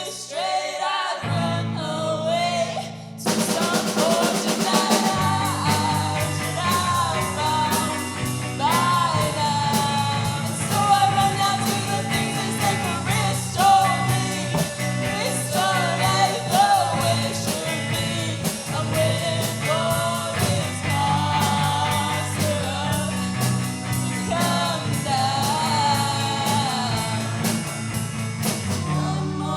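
A rock band playing a song with a lead vocal; the bass comes in about a second in and the full band with drums and cymbals joins about three seconds in.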